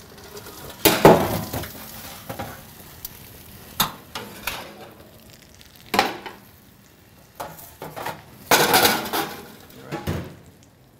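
Metal cookware clattering and knocking on a commercial range as a pan of roasted acorn squash is taken out of the oven with a towel and set on the stovetop: a loud clatter about a second in, single knocks near 4 and 6 seconds, and a longer rattle of pans near the end.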